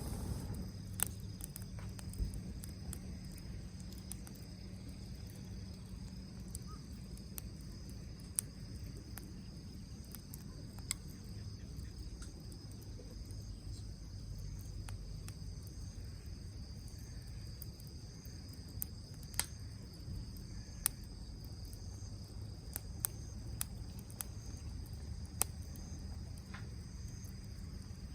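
A small pine-cone fire in a fire pit crackling, with sparse sharp pops scattered through, over a steady high chirring of insects.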